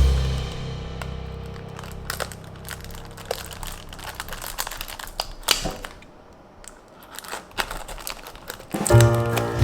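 Crinkling and clicking of toy packaging being handled, with many short, irregular clicks. A low music note sounds at the start and fades over a few seconds, and music with a strong bass comes back in near the end.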